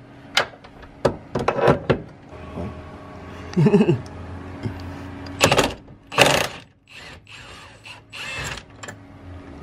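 Milwaukee cordless impact wrench hammering in short bursts on a body mount bolt, loosening it. A brief voice sound comes about four seconds in.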